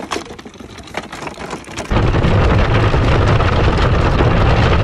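Wooden dog cart rolling over a dirt and gravel yard. From about two seconds in there is a loud, steady rumble and rattle from the wheels and frame.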